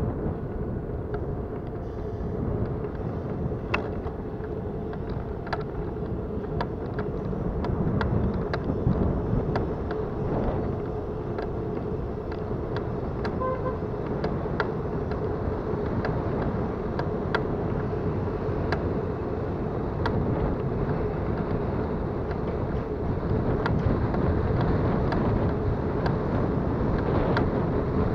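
Bicycle riding over the street with a steady low rumble, and frequent irregular clicks and rattles from its worn bottom bracket and drivetrain, sounding like a bucket of bolts: the bottom bracket is shot and the rear sprocket worn.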